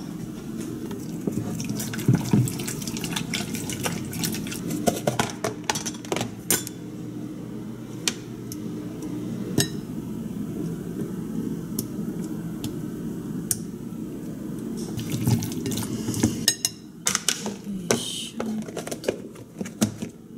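Long wooden chopsticks clicking and scraping against a glass mixing bowl as egg, cheese and leftover okonomiyaki batter are stirred, with scattered taps that come thicker near the end. A steady low hum runs underneath.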